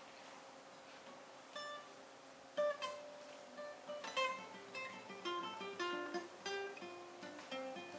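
Acoustic guitar fingerpicked, single notes plucked one after another in a loose run. It starts faintly about a second and a half in and gets louder a second later.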